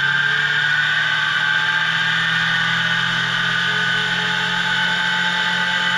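Electric spin dryer's motor running and spinning the drum: a steady high whine over a low hum. The drum turns freely now that the cut brake cable has been replaced and the brake releases.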